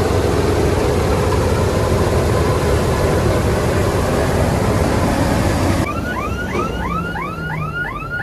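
Farm machinery's diesel engine running loud and steady under heavy noise, then, about six seconds in, it cuts abruptly to a quieter engine hum with a rapid string of rising-and-falling chirps, about three a second.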